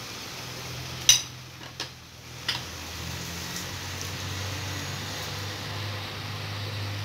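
Carrots in sauce simmering and sizzling in a large frying pan, a steady hiss with a low hum under it. A few sharp knocks come about a second in, the first the loudest.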